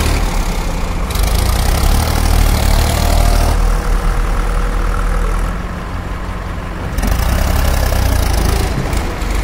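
Diesel engine of a New Holland 3600-2 tractor running while it tows a loaded trolley. The sound shifts abruptly a few times.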